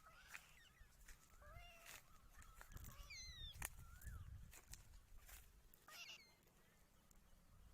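Newborn kitten mewing faintly, a few short thin cries that bend in pitch.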